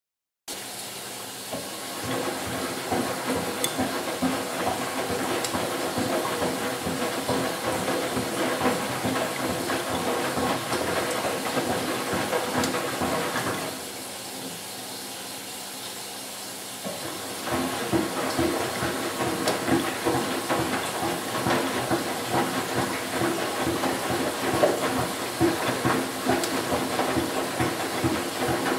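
Miele W 425 front-loading washing machine in its fabric-softener rinse, its drum tumbling the wash through water with sloshing over a steady hiss. The tumbling stops for about four seconds around the middle, then starts again.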